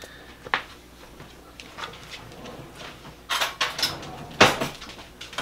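Kitchen clatter from items being handled: scattered light knocks, a cluster of clicks and rattles about three seconds in, and one sharp knock about a second later.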